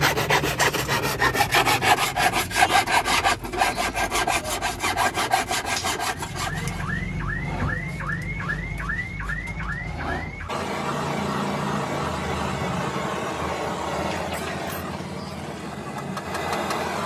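A flat hand file rasping across a hard plastic tail-light lens in rapid strokes for about six seconds, followed by a run of short rising chirps about twice a second. After an abrupt change about ten seconds in, a steady hiss, fitting a small gas torch burning.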